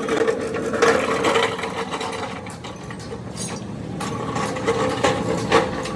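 Metal tools and parts of a truck rear axle clicking and clanking in short irregular clusters, over a steady machine hum.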